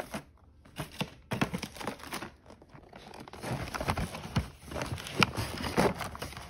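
Crinkling and rustling of grocery packaging and a reusable shopping bag as items are handled and set down, with a few short knocks.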